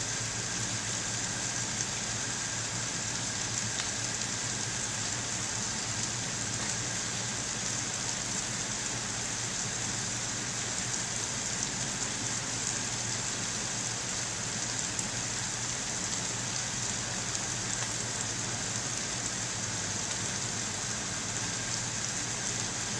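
Tomato-onion masala frying in oil in a pan: a steady, even sizzle.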